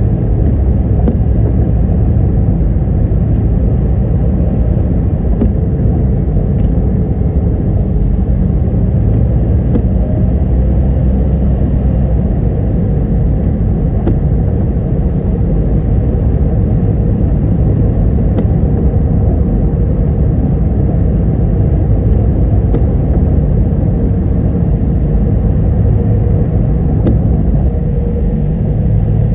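Car driving along a road: a steady low rumble of tyre and engine noise, with a few faint ticks here and there.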